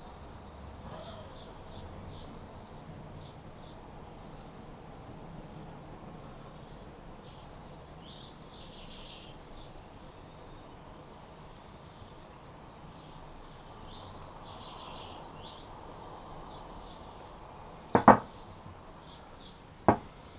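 Small birds chirping over and over in the background, short high calls with a few falling notes. Near the end come two sharp knocks about two seconds apart, the loudest sounds here.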